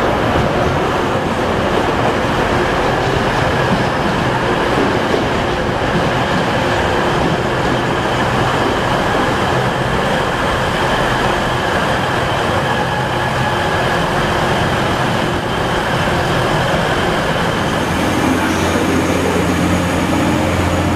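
Class 185 diesel multiple unit, with its Cummins diesel engine, running past along the platform, its engine and wheels on the rails giving a steady rumble under the station roof. A steady low engine drone comes in near the end.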